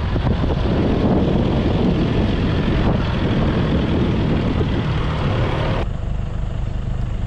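Safari jeep driving on a sandy track: engine running with a loud rushing noise of the tyres in sand. About six seconds in it cuts abruptly to a quieter, steady engine rumble.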